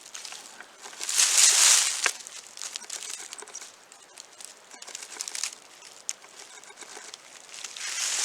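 Footsteps crunching through dry leaves and brush, an uneven rustling with small snaps of twigs, loudest for about a second near the start.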